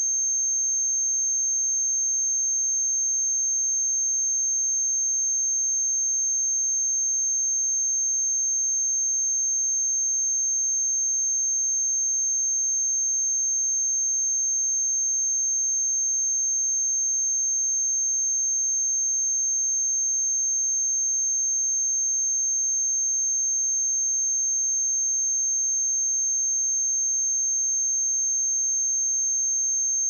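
A steady, unbroken 6362 Hz sine-wave test tone: a single pure high-pitched tone at constant pitch and loudness.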